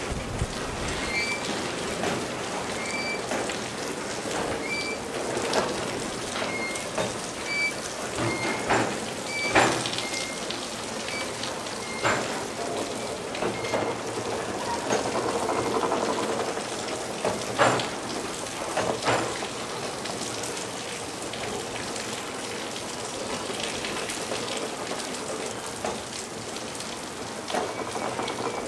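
Steady rain with scattered heavier drips, over the low rolling of a slow freight train of loaded flatcars passing along the platform. A faint short beep repeats about once a second during the first third.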